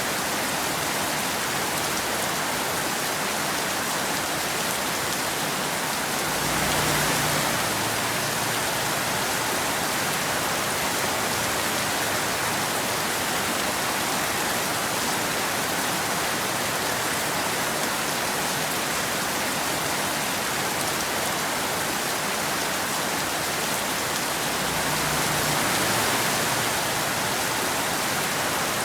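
Steady rain falling as an even hiss. It swells a little louder and fuller twice, about six seconds in and again near the end.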